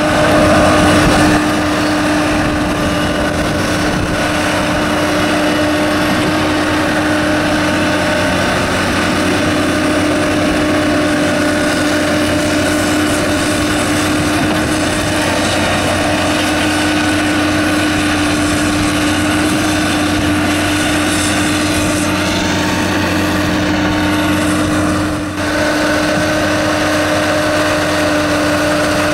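The Cummins diesel engine of an amphibious manure-lagoon agitation boat runs steadily under load, driving its pump as it churns the slurry. There is a brief dip and a change in tone about 25 seconds in.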